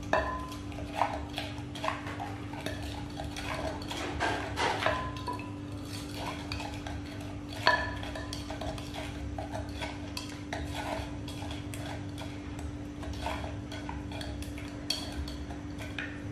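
Irregular clinks and knocks of a spoon and dishes as food is handled and mixed, with a few louder knocks about four to five seconds in and near eight seconds. A steady low hum runs underneath.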